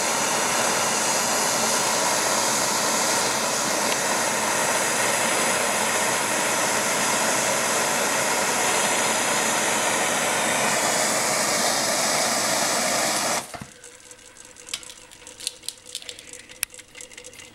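Gas torch flame heating a home-built Hero-style steam engine (a copper toilet-bowl float aeolipile): a loud, steady rushing, cut off sharply about three-quarters of the way through when the torch is shut off. After that, only faint scattered clicks and ticks remain.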